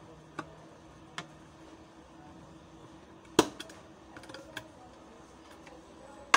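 A handful of separate plastic clicks and taps from handling a cylindrical Bluetooth speaker's casing and end cap during reassembly. The sharpest click comes about three and a half seconds in, followed by a few lighter ones.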